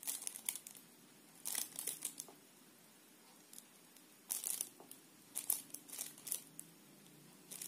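Several short bursts of crinkling, rustling noise, four or five in all, over a faint low hum.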